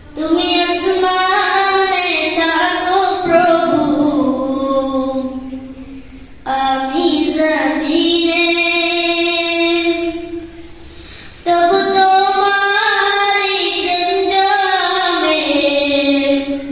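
A boy singing solo in three long phrases of drawn-out notes, with short breaks about six and ten seconds in.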